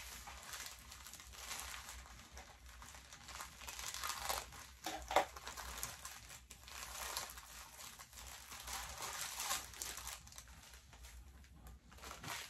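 Plastic bag crinkling and rustling in the hands as it is opened and a smaller plastic bag of items is pulled out of it, with sharp crackles, the loudest about five seconds in.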